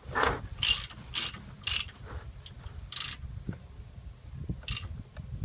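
Ratchet wrench clicking in short strokes as a bolt on a truck's rear differential is worked: four strokes about half a second apart, then single strokes about three seconds in and near the end.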